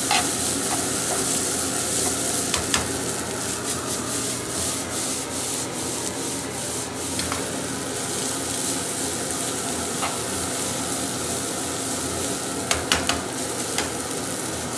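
Spaghetti and broccoli frying in a pan over a gas burner: a steady sizzle, with metal tongs scraping and clicking against the pan as the pasta is stirred. A few sharper clicks come near the end.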